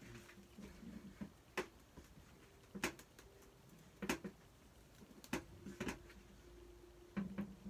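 Stretchy rubber monkey noodle toys being swung and stretched by hand: mostly quiet, with about six short sharp taps scattered through, over a faint steady hum.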